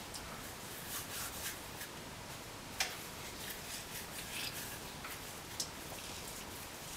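Hands rolling crumbly oat-and-coconut biscuit dough into balls between the palms: faint rubbing and crumbling, with a few small ticks, the sharpest about three seconds in.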